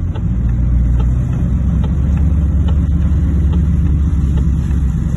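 Steady low rumble of a car driving in heavy rain, heard from inside the cabin, with faint scattered ticks over it.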